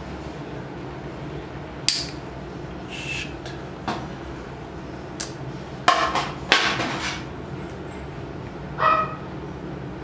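Metal dental extraction instruments clicking and clinking against each other and the teeth, a handful of sharp knocks, some with a short ring, with a cluster about two-thirds of the way in. A steady low hum underneath and a short pitched squeak near the end.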